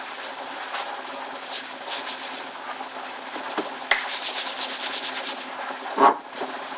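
Hands kneading soft pastry dough on a floured worktop, making a soft rubbing. From about four seconds in, a rolling pin rolls the dough out in quick repeated strokes that are a little louder.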